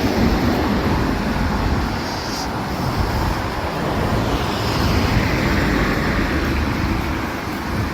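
Steady road traffic on a city street, a continuous rumble of passing vehicles.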